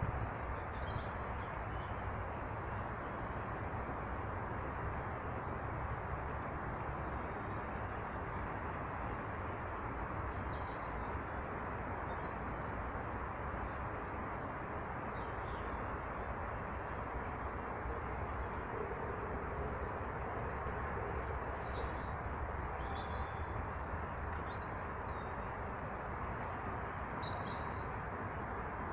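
Small birds chirping in short, high, scattered calls over a steady rushing background noise.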